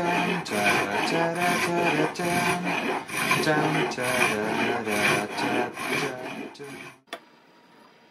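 A hand file rasping back and forth across the end of a piece of elk antler clamped in a vise, in steady strokes of about two a second. The filing stops abruptly about seven seconds in.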